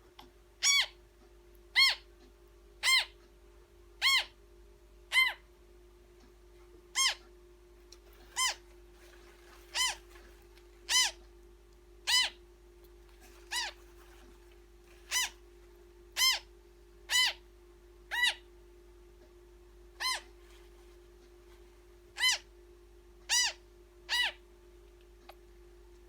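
Newborn African grey parrot chick calling while being hand-fed: short peeps about once a second, each rising a little then falling, with a few brief pauses. A steady faint hum runs underneath.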